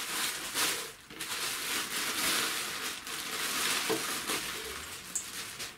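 Clear plastic packaging bag crinkling and rustling steadily as it is handled, with a bundle of wiring inside.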